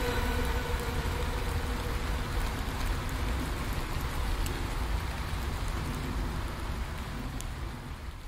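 A steady hiss of noise with a low rumble beneath it and a few faint ticks, slowly fading out toward the end.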